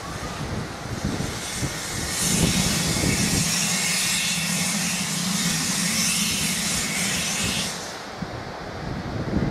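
Steam hissing steadily from an 1894 Hunslet 0-4-0 saddle tank steam locomotive, starting about two seconds in and cutting off suddenly near the end.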